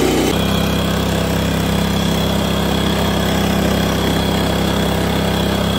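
Small petrol engine of a power weeder running steadily at constant speed, with no change in pitch.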